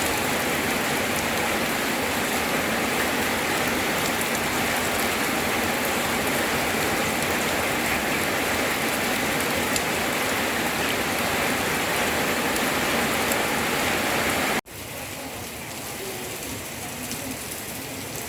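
Steady rain falling. About three-quarters of the way through it cuts abruptly to a quieter stretch of the same steady noise.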